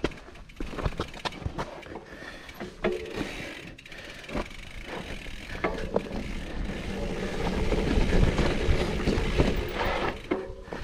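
Mountain bike running down a steep, rough dirt trail: irregular rattles, clacks and knocks from the bike over rocks and roots above a low rumble of tyre and wind noise, getting louder about halfway through.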